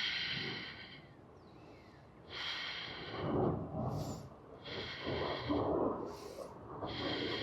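A person breathing audibly while holding a core-strength yoga pose (boat pose): several slow breaths in and out, one every second or two.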